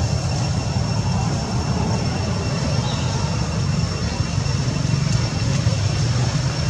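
Steady low rumble, with a faint, thin high whine held above it.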